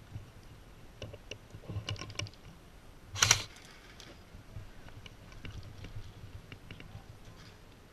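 Airsoft gun firing a short, rapid burst about three seconds in, the loudest sound here, after a second or so of scattered light clicks and knocks.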